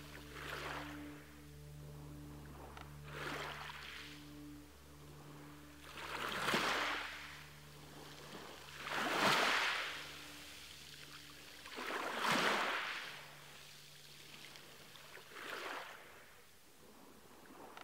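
Small sea waves washing ashore, each surging in and drawing back, six in all about every three seconds, with the middle three the loudest. A faint low sustained musical drone sits underneath and drops away toward the end.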